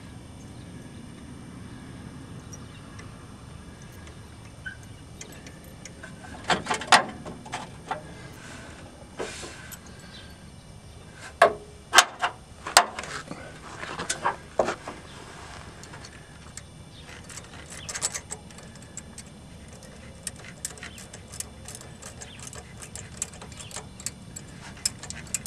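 Steel wrench clinking and clanking against a gear puller as its centre bolt is turned to draw the crankshaft gear off a Ford 4.9-litre inline-six: scattered sharp metal clanks in the middle, then a run of small quick clicks near the end.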